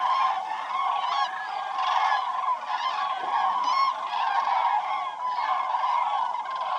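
A large flock of common cranes calling, a dense unbroken chorus of many overlapping bugling calls.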